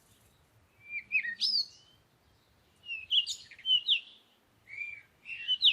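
Bird chirping in three short bursts of high, quickly gliding calls.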